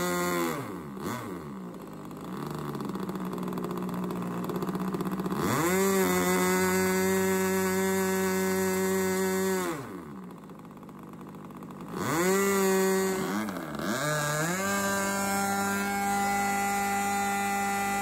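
Super Tiger Bluehead two-stroke glow engine on a model airplane running at high speed and throttled back to a low idle and up again several times: down about a second in, up again around five seconds, down near ten seconds, up at twelve, a short dip near fourteen, then held steady at high speed.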